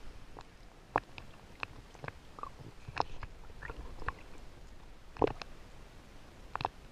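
Scattered sharp clicks and knocks, roughly one a second, over a faint steady hiss, as from a camera in a waterproof housing being handled and splashed at the water's surface.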